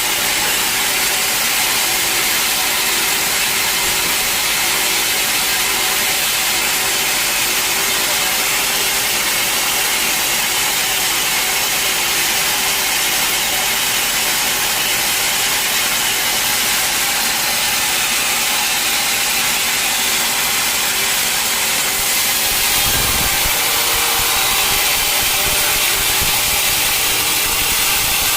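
A sawmill blade cutting through a teak log, with the mill's motor running: a loud, steady sawing noise that grows a little louder in the last few seconds.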